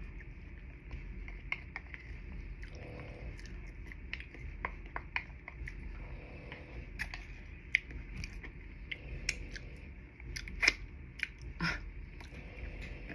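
Close-miked eating: a person chewing food, heard as a steady run of small wet mouth clicks, with a few sharper, louder clicks in the last few seconds.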